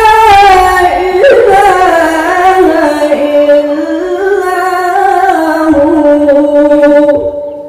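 A male qari recites the Qur'an in the melodic tilawah style into a hand microphone. He draws out one long, ornamented phrase with held notes that waver and bend in pitch. The voice drops away about seven seconds in.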